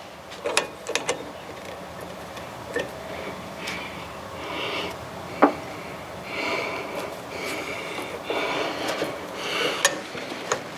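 Scattered sharp metal clicks and rubbing, scraping sounds as the new handbrake cable's clevis is worked onto the rear brake's handbrake lever and the clevis pin pushed home.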